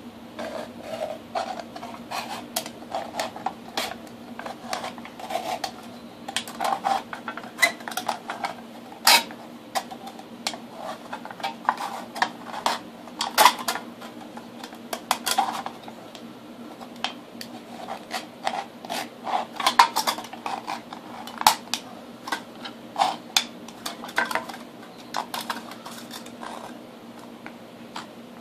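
Knife blade cutting through a thin aluminium drink can along a scored line, with irregular sharp metallic clicks and crinkles throughout.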